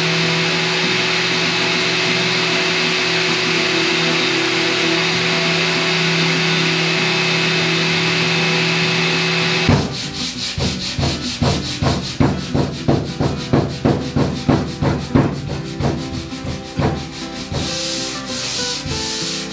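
Electric disc sander with 150-grit paper running steadily on an oak drawer front, taking the old finish off. It is a constant hum with a buzzing whir. About ten seconds in it stops abruptly and gives way to hand sanding: sandpaper rubbed back and forth on the wood in rhythmic strokes, about two a second.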